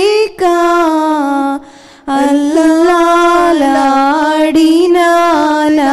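A woman singing a Telugu Christian devotional song, one voice drawing out long held notes that slide between pitches, with a brief break for breath about one and a half seconds in.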